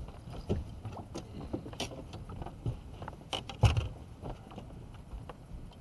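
Scattered knocks, thumps and small clicks of feet and fishing gear on a bass boat's deck while a hooked fish is played on rod and reel. The loudest thump comes about three and a half seconds in.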